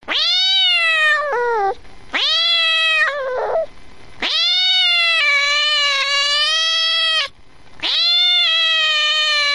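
A domestic cat meowing four times, the third meow long and drawn out.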